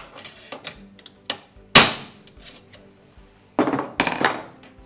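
Small hammer striking a steel tool fitted over the shaft of a Grundfos SQF submersible pump: sharp metal-on-metal knocks with a short ring, about four in the first two seconds, the loudest near two seconds in. A quick cluster of metal knocks and clatter follows near the end.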